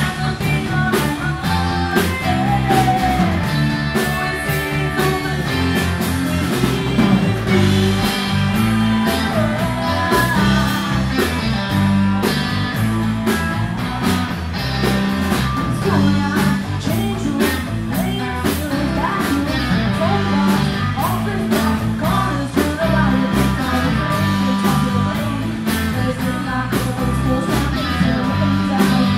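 Live band playing: a woman singing into a microphone over electric guitars and a drum kit, with a steady beat.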